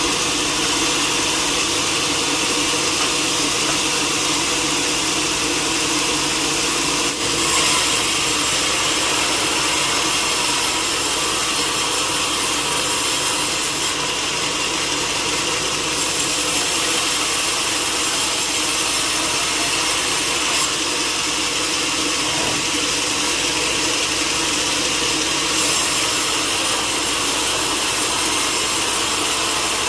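Power saw cutting through timber in a sawmill: a steady, loud rasping machine noise. It grows harsher and slightly louder about seven seconds in.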